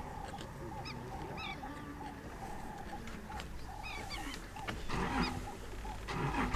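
Wild birds calling over and over in short chirping, gliding notes above a low steady hum, with two brief rough bursts of noise near the end.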